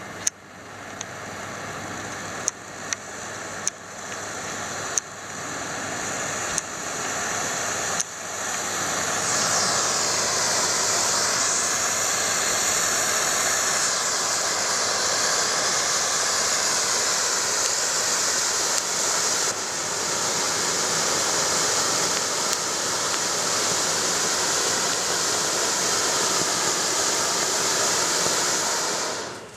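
Ground fountain firework spraying sparks with a rushing hiss. In the first eight seconds several sharp pops break the hiss, which builds up again after each. From about eight seconds in it hisses full and steady, then cuts off suddenly near the end as the fountain burns out.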